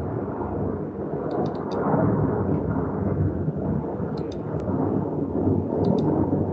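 A steady low rumbling noise, about as loud as the speech around it, with a few faint short high ticks.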